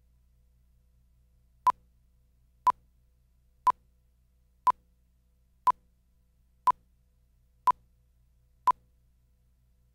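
Countdown beeps on a tape slate: eight short, identical beeps at one pitch, one a second, stopping about a second before the end. A faint low hum lies beneath.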